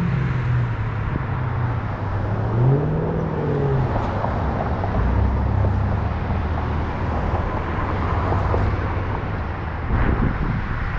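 A car engine running close by, its pitch dipping and rising over the first few seconds before settling into a steady low idle, over general road traffic noise.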